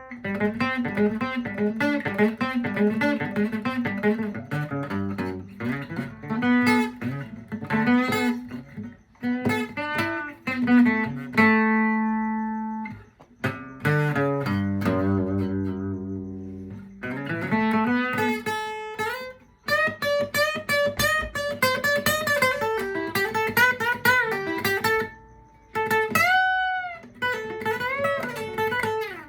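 Solo guitar playing: picked single-note riffs and a held chord, with a string bent upward in pitch near the end.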